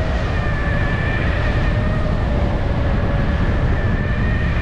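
Electric unicycle hub motor whining steadily at speed, over heavy wind rumble on the microphone.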